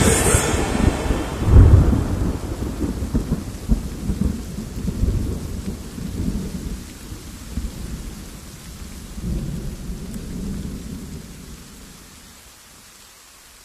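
Thunder rumbling over rain, with a loud clap about two seconds in and another roll near ten seconds, then dying away to a faint hiss.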